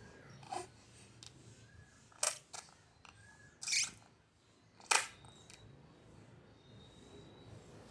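Baby making a few short, sharp clicking and smacking mouth sounds, spaced out with quiet gaps between them.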